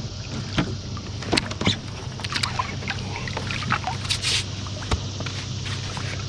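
Scattered clicks and knocks on a fishing kayak and its gear, with a short splash about four seconds in, over a steady low hum. A big catfish is being fought to the boat.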